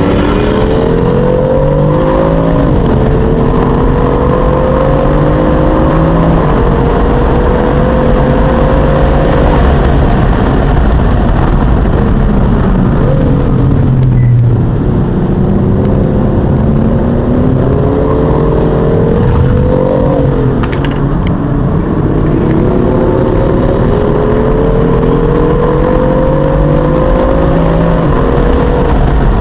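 BMW M4's twin-turbo straight-six engine heard from inside the cabin under hard acceleration. Its note climbs through the revs and drops back sharply at each upshift, eases off about halfway through, then pulls up through the gears again.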